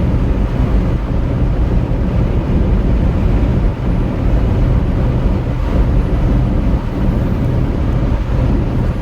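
Inside a semi-truck's cab on the move: the diesel engine's steady low drone mixed with road and wind noise.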